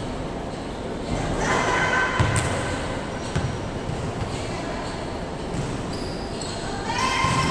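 Volleyball rally in a large gym hall: sharp slaps of hands and arms striking the ball, echoing in the hall. The loudest hit comes about two seconds in, and there are further hits near the middle and the end.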